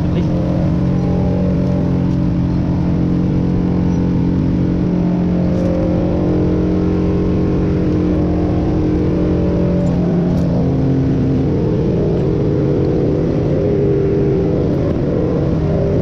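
Crane truck's diesel engine running steadily, a constant drone whose pitch shifts a little about eleven seconds in.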